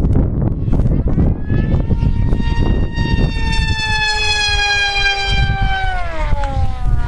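Weston Tigershark RC plane's Scorpion 3026 brushless electric motor and 8x6 propeller whining overhead. The high whine fades in about a second in, holds nearly steady, then slides down in pitch about six seconds in. Wind rumbles on the microphone throughout.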